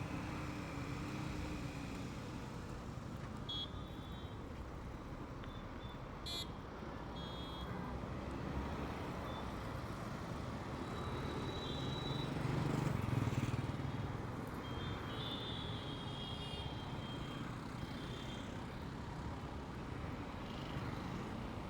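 Motorcycle ride through city traffic: steady engine rumble with road and wind noise, swelling louder for a couple of seconds near the middle. Several short, high-pitched beeps from the surrounding traffic cut in along the way.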